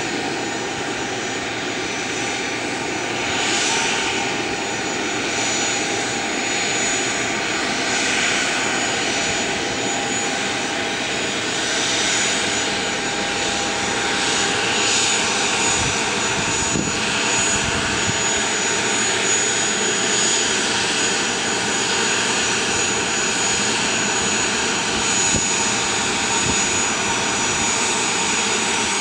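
Cessna 680A Citation Latitude's twin Pratt & Whitney Canada PW306D1 turbofans running at taxi power: a steady jet rush with a high whine held on one pitch.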